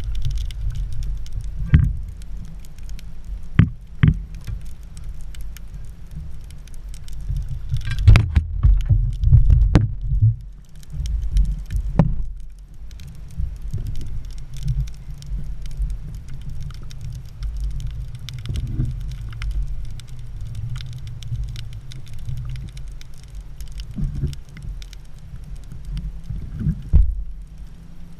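Muffled, uneven low rumble of moving water with scattered sharp clicks and knocks, as picked up by a camera in a waterproof housing during an underwater spearfishing dive.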